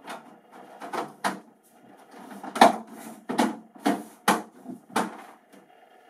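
Plastic air filter grille being pushed and snapped back into the rear housing of a desiccant dehumidifier: a run of about ten plastic clicks and knocks with some scraping, the loudest snap about two and a half seconds in.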